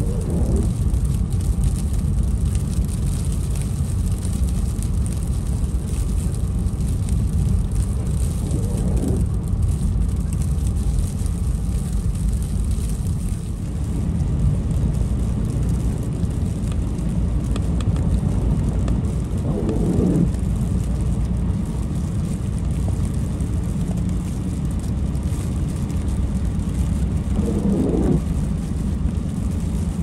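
Steady low rumble of a car driving on a wet road, heard inside the cabin, with the windshield wipers sweeping across the glass four times, roughly every nine to ten seconds.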